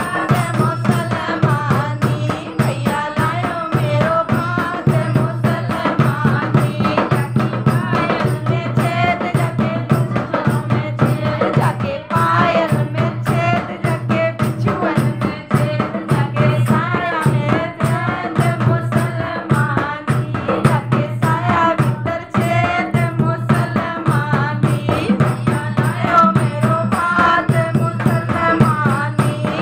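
Group of women singing a folk song together, accompanied by a dholak drum beaten in a steady rhythm.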